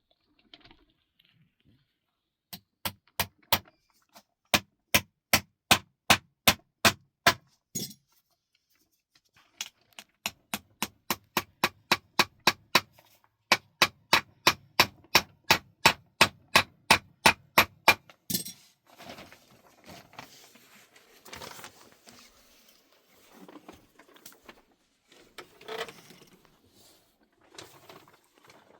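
Rapid hammering, about three blows a second, in two long runs with a short break around eight seconds in. After that, quieter irregular knocks and scraping.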